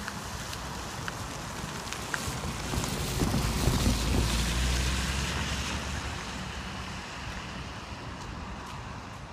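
A car drives past close by, its engine and tyre noise swelling to a peak about four seconds in and then fading away, with wind buffeting the microphone throughout.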